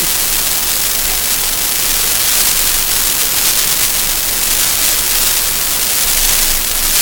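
A steady, loud hiss of noise, even and unbroken, strongest in the high frequencies.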